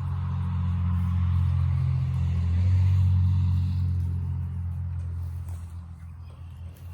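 A motor vehicle driving past, its low engine hum growing louder to a peak about three seconds in and then fading away.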